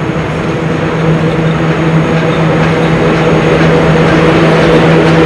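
ET22 electric freight locomotive approaching with a train of LPG tank wagons: a steady electric hum over the rolling rumble of wheels on rail, growing louder.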